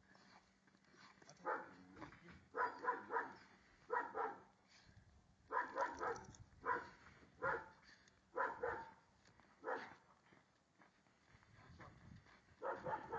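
Black schnauzer barking in short calls, about fifteen in all, often two or three in quick succession with pauses between.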